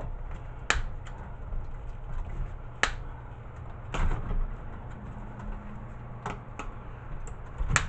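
Sharp clicks of hand wire cutters snipping and working wires inside a VHS player being stripped for scrap, about six clicks spread unevenly over a low steady hum.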